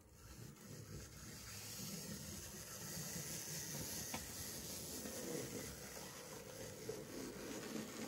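Small OO gauge model locomotives running: the electric motors whirring and the wheels rumbling over the rails, with one sharp click about four seconds in.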